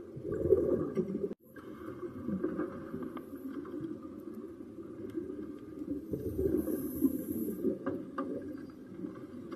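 Underwater camera sound of scuba divers breathing through their regulators: a muffled, irregular rumble of exhaled bubbles with spells of hiss, breaking off briefly about a second and a half in.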